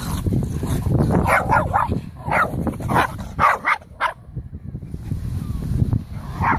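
Dogs barking and yipping in play. There is a quick run of short barks, a brief pause about four seconds in, then more barking near the end.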